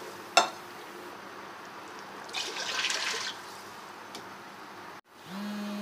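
Water poured from a glass into a pot of browned beef and ghee, splashing in a burst about two and a half seconds in, with a sharp knock shortly after the start. A steady low tone begins near the end.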